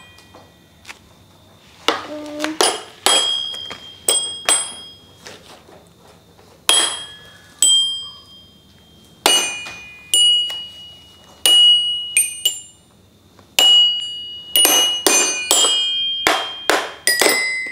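Toy xylophone being struck one note at a time, each note ringing briefly. The strikes are sparse at first and come quicker and closer together in the last few seconds.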